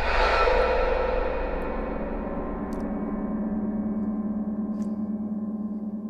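A sudden gong-like hit in the film score: one struck, ringing tone with many overtones that slowly fades over several seconds, over a low drone.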